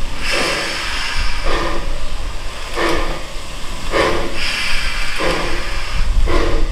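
Narrow-gauge steam locomotive working at low speed, its exhaust giving slow, even chuffs about a second apart, with steam hiss and a low rumble under them.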